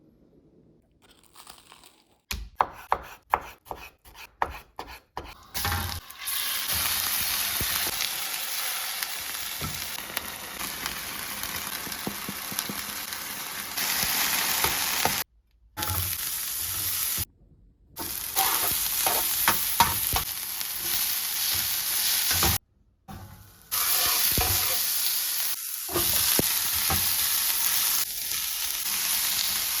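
A quick run of sharp knocks, about three a second, then food sizzling in a frying pan with the clicks of a utensil stirring it. The frying is cut off abruptly a few times and then resumes.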